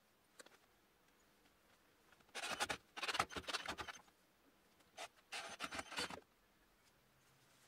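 Cordless drill driving wood screws through a steel lathe faceplate into a wood blank: two bursts of rapid, gritty scraping as each screw turns into the wood, the first about two seconds in and the second about five seconds in. A small click just after the start.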